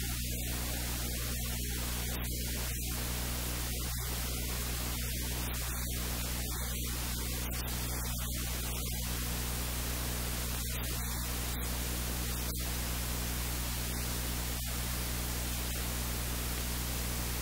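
Steady static hiss over a low electrical hum.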